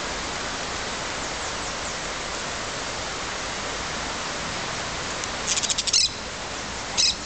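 Yellow-chevroned parakeet giving a rapid burst of shrill chattering calls about five and a half seconds in, then one short call near the end, over a steady hiss.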